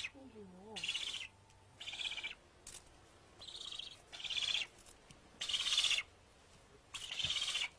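Young northern bald ibises calling: a run of about seven short, hoarse, raspy calls, roughly one a second.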